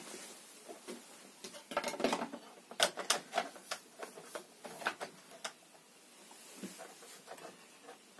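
Irregular clicks, taps and knocks of plastic and metal parts as a Stihl MS 170 chainsaw and its orange plastic cover are handled, most frequent in the first half.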